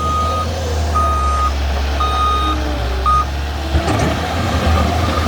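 Skid steer's backup alarm beeping about once a second as it reverses, over the steady running of its diesel engine; the beeping stops about three seconds in, followed by a few knocks near four seconds.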